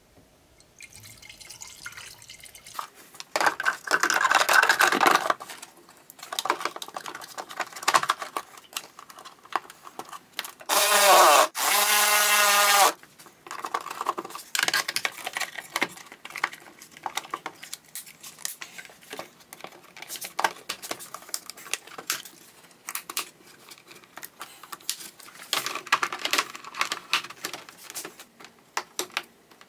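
Coolant poured from a plastic jug into a BMW E46's cooling system, loudest as a gurgling fill about 11 to 13 seconds in. Around it come irregular clicks, knocks and rattles of plastic parts as the air filter and airbox are fitted.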